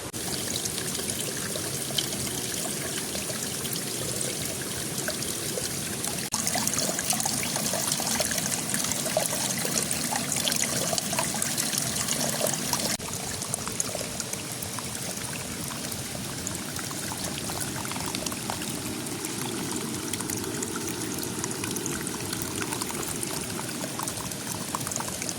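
Flowing river water splashing and trickling over rocks, a steady rush full of small splashes. It gets louder about six seconds in and drops back a little near thirteen seconds.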